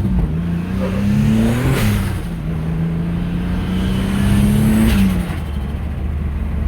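Turbocharged V6 of a Holden Commodore, a factory L67 3.8-litre engine fitted with a 76 mm turbo, accelerating hard. The revs climb, drop about two seconds in as it shifts gear, climb again, drop near five seconds in, then settle to a steady cruise.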